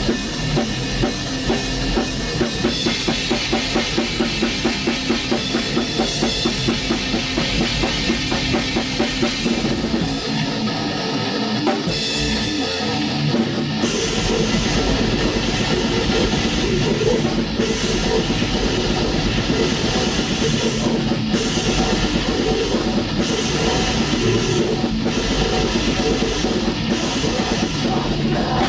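Black metal band rehearsing: a drum kit pounding out fast, even beats under the full band, with the bass drum dropping out briefly about ten seconds in before the whole band comes back in.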